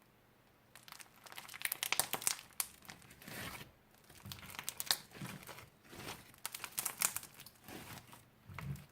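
Crinkling and crackling handling noise, in repeated bursts beginning about a second in, as slime and its plastic packaging are worked by hand.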